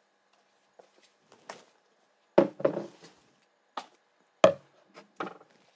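A series of short, sharp knocks on a wooden desktop as things are put down and handled on it. Two faint ticks come first, then a cluster of louder knocks, the loudest about two and a half and four and a half seconds in.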